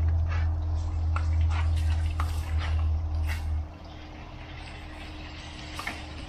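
Garden hose spray splashing and spattering, with many short sharp splashes and clicks as the water hits. A loud low rumble runs under it and cuts off suddenly about three and a half seconds in.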